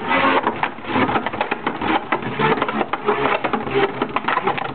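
Two metal Beyblade Metal Fusion spinning tops, Storm Pegasus and Galaxy Pegasus, whirring in a plastic stadium with a dense, rapid clicking and rattling as they strike each other and the stadium.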